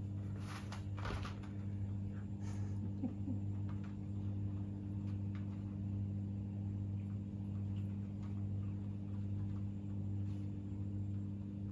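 Low steady hum of a Petkit cat water fountain's pump, with scattered light clicks and taps, a few of them louder in the first couple of seconds.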